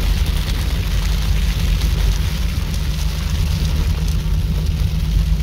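Cabin noise inside a Jeep driving on a rough wet dirt road: a steady heavy rumble of engine, tyres and wind, with a dense patter of hail on the hood and roof.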